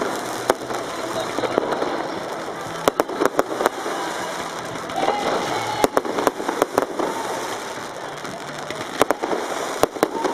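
New Year's Eve fireworks going off: irregular sharp bangs and crackles in clusters over a steady noisy background.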